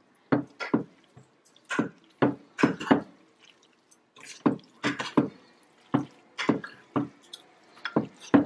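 Metal forks shredding and mixing sauced pulled pork in a glass baking dish: irregular short taps and clinks of the forks against the glass, about two or three a second.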